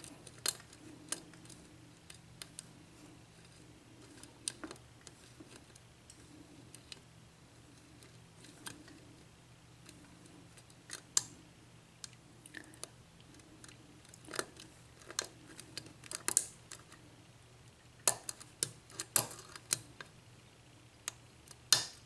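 Lock pick and tension wrench working the pins of a Sargent 6-pin mortise cylinder: scattered light metallic clicks and ticks as the pins are lifted and set, coming more often in the last several seconds.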